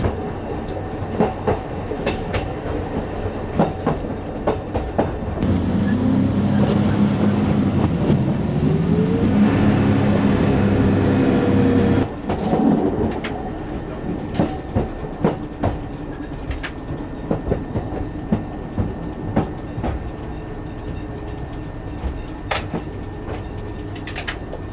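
Metre-gauge diesel railcar of the Chemins de Fer de Provence running on jointed track, its wheels clicking over the rail joints. About a fifth of the way in, a louder engine note comes in and rises in pitch, then cuts off suddenly about halfway through.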